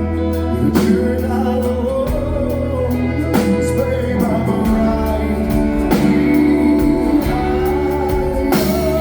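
Live band playing a slow country waltz: guitars over held bass notes, with a wavering melodic lead line.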